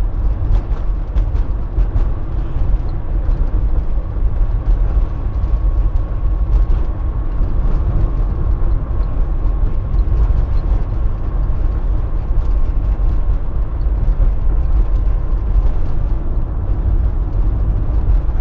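Engine and road noise heard inside the cab of a moving Fiat Fiorino van: a steady low rumble, with a faint steady whine over it for most of the stretch.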